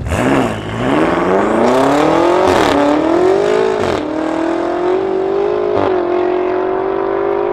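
Stage 3 tuned BMW F90 M5 twin-turbo V8 accelerating hard through the gears. Its pitch climbs, drops briefly at each upshift (three times), then holds nearly steady at high revs in the second half.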